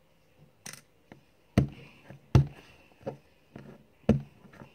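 Play dough being smashed flat on a tabletop by hand: a run of about seven uneven thumps and knocks, the two loudest near the middle.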